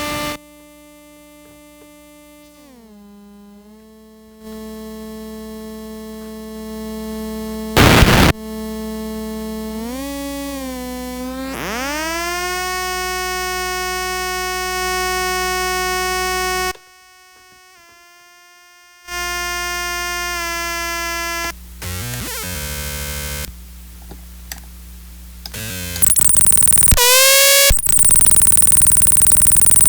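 Circuit-bent, self-oscillating guitar pedal made of EQD Life and DOD Carcosa clone circuits fed back into themselves, making electronic tones: buzzy pitched drones that step down in pitch, with a short loud crackle about eight seconds in. Near the middle a tone swoops up and settles, and the sound cuts out for a couple of seconds. It ends in a loud, harsh screeching noise over the last few seconds.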